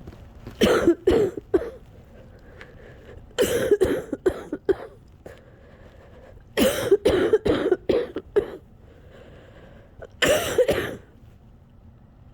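A person coughing hard from a chest cold that has lingered for weeks: four bouts of repeated coughs, each a string of several sharp coughs, a couple of seconds apart.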